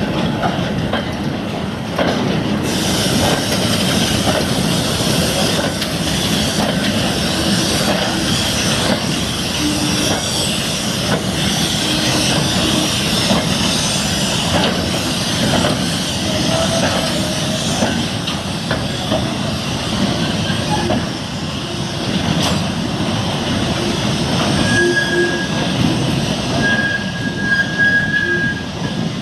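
A slow freight train of steel mineral wagons and a brake van rolling past, with a steady rumble and rattle of wheels on the rails. Wheel flanges squeal on the curve in short high tones, loudest near the end.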